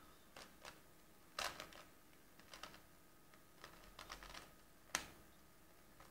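3x3 Rubik's cube being turned by hand: faint plastic clicks and clacks of its layers turning, in quick bunches. The sharpest click comes about five seconds in.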